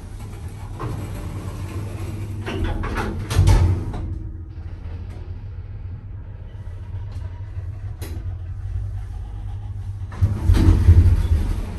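Vintage single-speed Otis lift heard from inside the car: the sliding doors close with a clunk about three seconds in, the car travels with a steady low motor hum, and near the end it stops with a loud clunk as the doors open.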